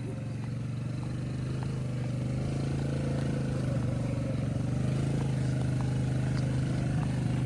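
Small engine of a loaded three-wheeled trike running steadily, growing a little louder as it works.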